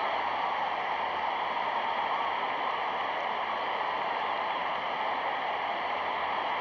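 Steady rushing noise, even and unbroken, with no speech or music.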